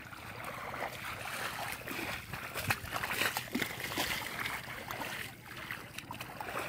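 Hands splashing and squelching through shallow muddy water and mud, groping for fish, with irregular small splashes.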